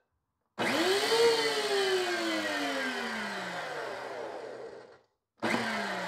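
DeWalt DW735 thickness planer's motor and cutterhead switched on for a moment: it spins up and then coasts down in a falling whine for about four seconds. It is started again near the end and begins winding down once more.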